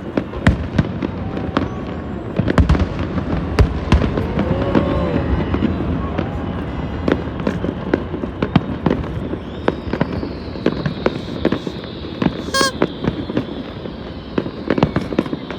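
Fireworks display: a dense run of sharp bangs and crackling bursts. From about ten seconds in, a thin high tone that falls slightly in pitch runs alongside them.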